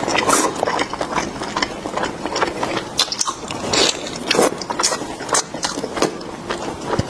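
Close-miked biting and chewing of Korean rice sausage: a quick, irregular run of wet mouth clicks and smacks.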